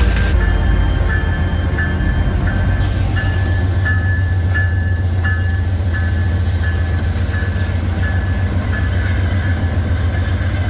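Train rolling past with a heavy, steady low rumble, and a high ringing tone repeating about twice a second.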